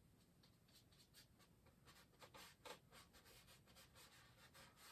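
Faint, irregular strokes of a fan brush on canvas, dabbing and dragging wet oil paint, with a few slightly louder scrapes a little past the middle.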